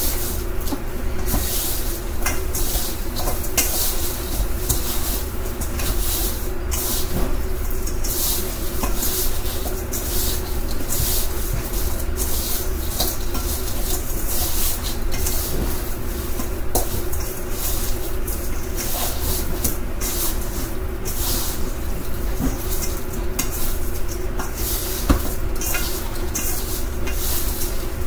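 Chicken wings being dumped in and tossed in a container, a continuous run of small wet rustles and clicks over a steady low hum.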